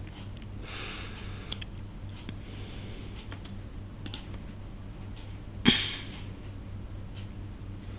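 Computer keyboard keys tapped a few times, then one much louder sharp click about two-thirds of the way through, over a steady low hum.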